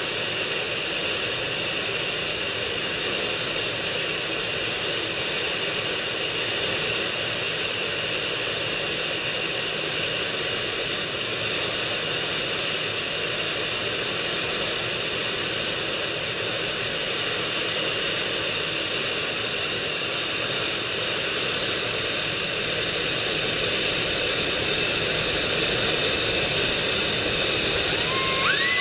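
Jet engine running steadily: a constant rush with a high, even whine.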